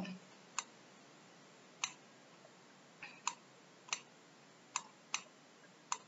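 About eight short, sharp clicks at uneven intervals, made while drawing lines on a computer whiteboard, over a faint steady hiss.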